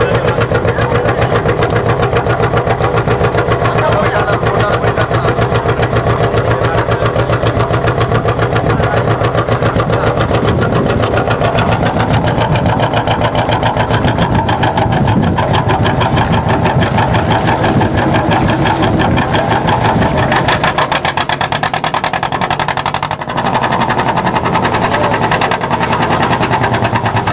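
A motorboat's engine running steadily under way, heard close on board as a fast, even, pulsing beat.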